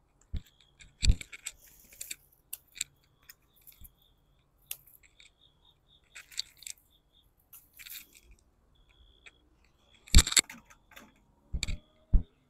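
Bitter gourd vines and leaves rustling, with scattered sharp snaps and clicks as the gourds are picked from the trellis; the loudest snaps come about ten seconds in and twice near the end.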